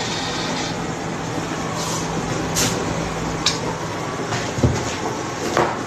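Steady background noise with a low hum through most of it. A few sharp clatters and knocks come roughly a second apart in the second half.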